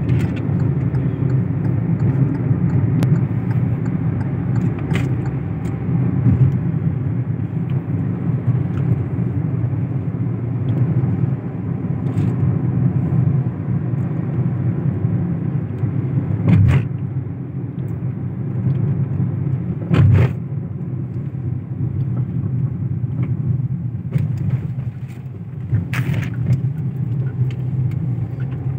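A car driving, its engine and tyre noise a steady low rumble, with a few short knocks: one about two-thirds of the way through, another a few seconds later, and a third near the end.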